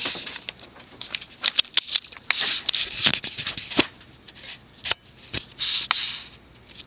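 Irregular sharp clicks mixed with short scraping rustles, like things being handled close by.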